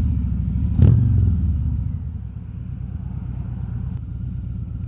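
Harley-Davidson Road King Special's V-twin engine running at low road speed, with a single sharp click about a second in. The engine grows quieter about two seconds in and then runs on steadily.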